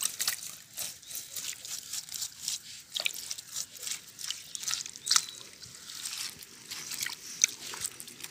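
Irregular crackling and clicking of hands pulling leaves and dirt off a plastic mesh water-filter screen, with a faint trickle of water running through it.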